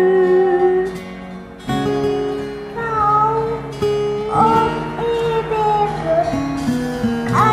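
Karaoke backing track playing an instrumental break led by acoustic guitar. A sung note held over from the previous line stops about a second in.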